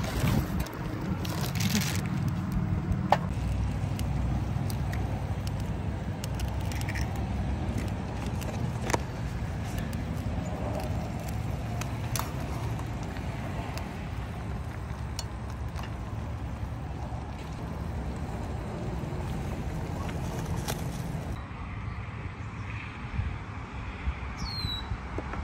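Outdoor cooking: ramen boiling in a steel pot on a portable butane camp stove, over a steady low rumble, with a few sharp clicks of utensils on the pot. About three-quarters of the way through, the sound changes as the scene moves to eating.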